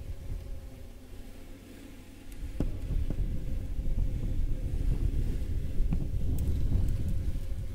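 A low, steady rumble that grows louder about two and a half seconds in, with a single sharp click near that point.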